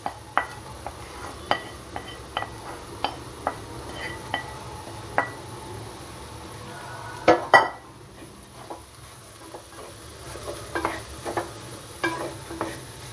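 Light metallic taps as a steel plate is knocked against the rim of an aluminium pot to tip scrambled egg into the vegetables, with two louder knocks about seven seconds in. After that, a wooden spatula stirs and scrapes the egg and vegetables in the pot.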